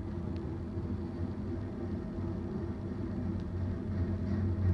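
BNSF intermodal freight train passing: a steady low rumble with a deep hum, and a faint click now and then.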